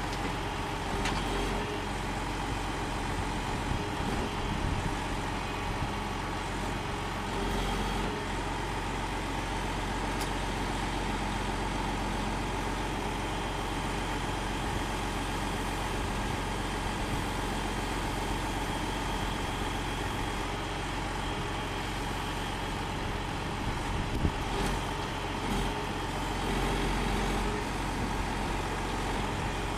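Log truck's diesel engine running steadily while its grapple loader unloads logs, the engine swelling slightly a couple of times, with a few short knocks.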